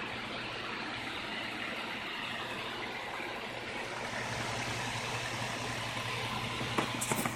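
Computer fans running with a steady whirring hiss and a low hum, the hiss brightening a little about four seconds in; a few sharp clicks near the end.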